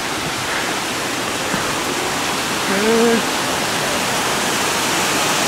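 Rushing water of a mountain creek: a steady, even rush that swells slightly toward the end. A short vocal sound is heard about halfway through.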